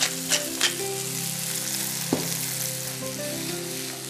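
Escalopes sizzling steadily as they fry in olive oil in a frying pan, with two clicks of a hand pepper mill in the first second and a single knock about two seconds in.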